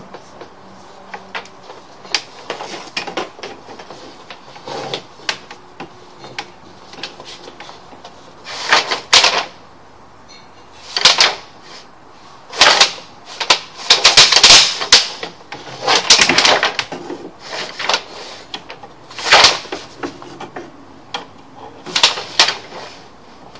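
Sewer inspection camera push cable and reel being twisted and pushed by hand to steer the camera head: faint clicks at first, then from about eight seconds in a series of irregular clattering, scraping bursts a second or so long.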